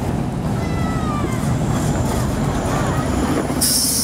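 Streetcar passing, its steel wheels squealing in thin, wavering tones against the rails, with a sudden loud hiss near the end.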